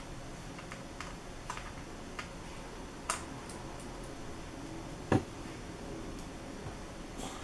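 A small precision screwdriver clicking and scraping at a tight screw in a Samsung Series 9 ultrabook's open case: scattered light ticks, with one louder dull knock about five seconds in.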